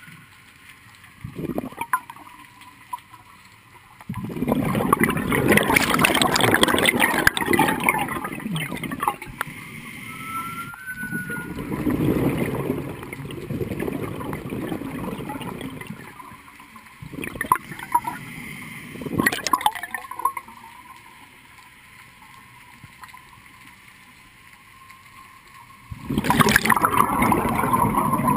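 Underwater bubbling from a scuba diver's regulator exhaust, three bouts several seconds long with quieter spells between, plus a few sharp clicks.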